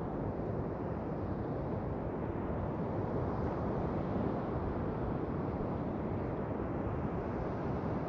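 Steady wind noise on the microphone: a low, even rush with nothing standing out.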